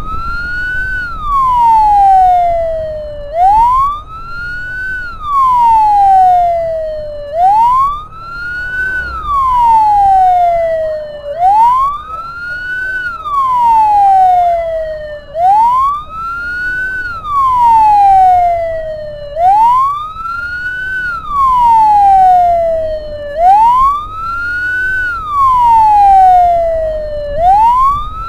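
Ambulance siren wailing, each cycle rising quickly and then falling slowly, about once every four seconds. A low rumble runs underneath.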